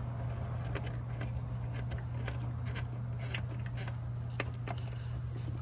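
Scattered light clicks and ticks of a wiring harness wire being handled and pushed through a hole in a car's firewall, over a steady low hum.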